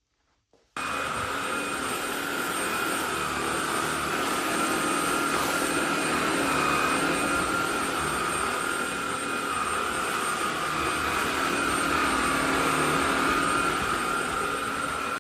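SilverCrest SHAZ 20 A1 20 V cordless cyclonic vacuum cleaner switched on under a second in, its motor running steadily with a high whine over the rush of air.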